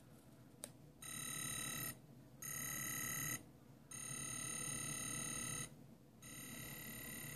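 Sonic screwdriver replica's electronic sound effect: a single click, then four bursts of a steady electronic tone, each about one to two seconds long with short pauses between.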